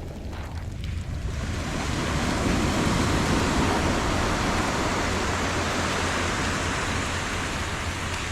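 Rushing noise of surf and heavy rain that swells about a second in and slowly eases, over a low rumble of wind on the microphone.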